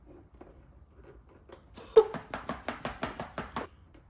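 A sharp knock about two seconds in, followed at once by a rapid run of about a dozen sharp taps, roughly seven a second, that stops after under two seconds.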